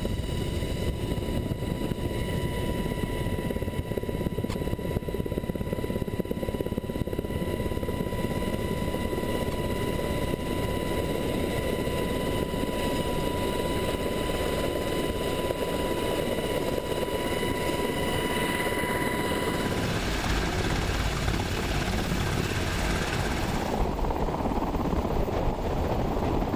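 Helicopter in flight heard from inside the cabin: steady rotor and turbine noise with a steady high whine. About twenty seconds in, the whine drops out and the noise turns deeper and rougher.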